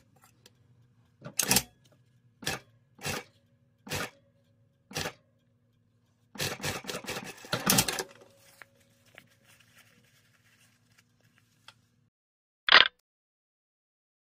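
Sewing machine with its motor humming, and a series of separate clicks and knocks with fabric being handled at the machine, busiest a little past the middle. Near the end a single short, sharp high sound is the loudest thing.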